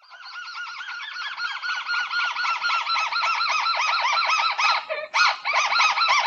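Crake (burung tikusan) calling: a fast, continuous run of short arched notes, several per second, with a brief break about five seconds in, played as a bird-trapping lure call.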